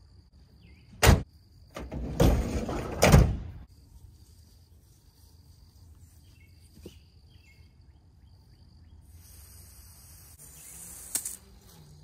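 Rear cargo door of a Ford van being handled and shut: a sharp clack about a second in, then a rattle and a slam about three seconds in. Near the end a garden hose spray nozzle hisses as it starts spraying water at the van to find a roof leak.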